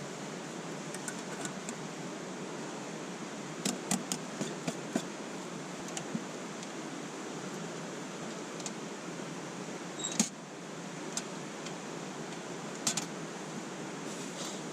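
Mountain stream rushing steadily, with a few sharp, irregular clicks over it, the loudest about ten seconds in.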